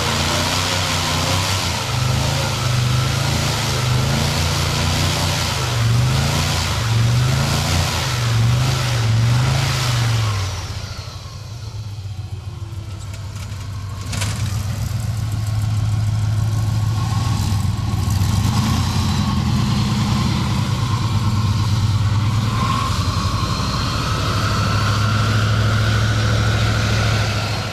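A motor engine running, its pitch rising and falling as it revs for about the first ten seconds, then running more steadily; a single sharp click about fourteen seconds in.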